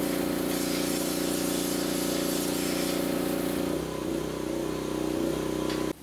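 Pressure washer running, its jet spraying into the bore of a carronade barrel to wash out the old wadding and concretion. It is a steady motor hum under a hiss of spray. About four seconds in the motor note drops and wavers, and the sound cuts off sharply just before the end.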